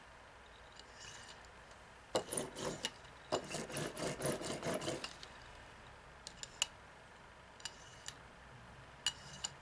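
Hand brayer rolled back and forth through tacky acrylic paint: a sticky rubbing that starts about two seconds in and lasts about three seconds, followed by a few light clicks.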